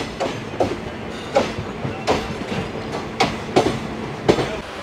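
Steel wheels of an Indian Railways sleeper coach clattering over rail joints, with irregular sharp clacks about two a second over a steady rumble and a faint hum. It is heard from the open coach doorway, so the clatter is loud and direct.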